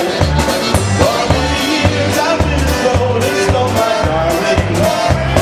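Live band playing a polka, with a steady bouncing bass beat under regular drum strikes and melody lines.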